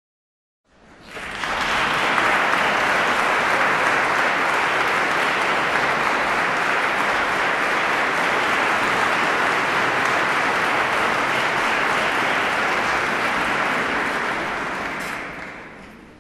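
Audience applauding, building up within the first second or two, holding steady, then dying away near the end.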